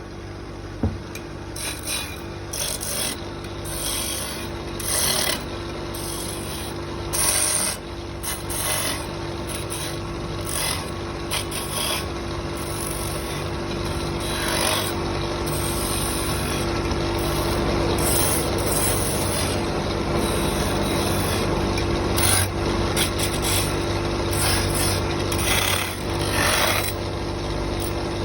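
Wood being worked with irregular rasping, rubbing strokes, some short and some long, over a steady low hum.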